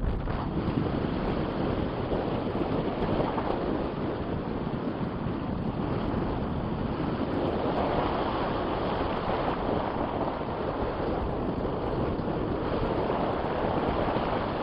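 Strong wind buffeting the microphone, a steady rushing noise without let-up.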